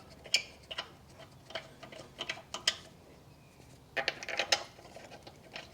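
Wheel bolts being started by hand into a car's wheel hub: irregular light metallic clicks and taps, with a quick cluster about four seconds in.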